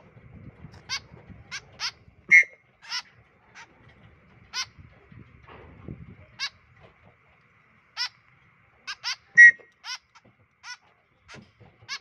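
Young white-breasted woodswallows giving short, sharp begging calls, about twenty at irregular spacing, two of them much louder. Low rustling of the birds being handled on a glove comes near the start and again in the middle.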